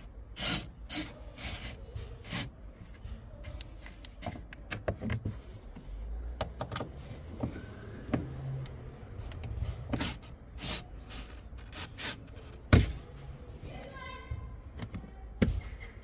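Clicks, knocks and rubbing of hard plastic as a car's rear tail light and trim are worked into place by hand. There is one sharp knock about three-quarters of the way through.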